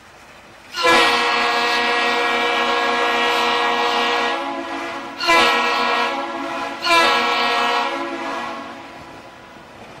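Ship's horn blowing: one long blast of about three and a half seconds, then two shorter blasts about two seconds apart, the last dying away over a second or two.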